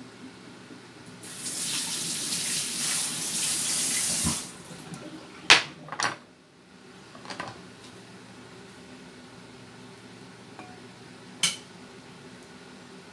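Kitchen tap running into a stainless-steel sink for about three seconds, then shut off. A few sharp clinks and knocks of a metal utensil follow: two close together just after the water stops, one softer a moment later, and one more near the end.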